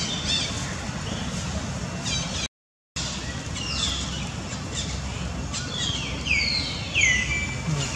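Short high animal calls, each sliding down in pitch, repeated many times and coming thickest in the second half, over a steady outdoor background. The sound drops out completely twice, briefly, at edits.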